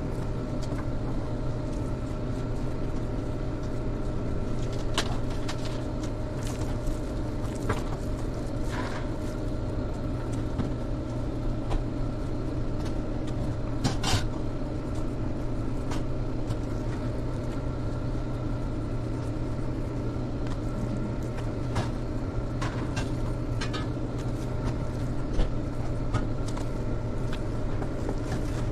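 Steady low hum of kitchen machinery, with a few short sharp clicks and taps of a knife working meat on a plastic cutting board.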